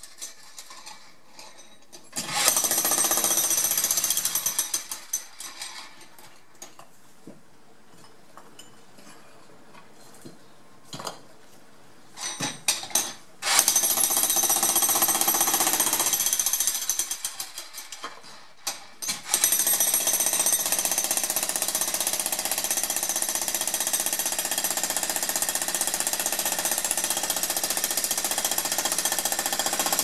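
Corded electric jackhammer breaking up stone pool coping, running in bursts. It hammers for a couple of seconds early on, then stops, leaving several seconds with only scattered knocks. It gives two short bursts around the middle, runs for about three seconds, stops again, and then runs steadily through the last third.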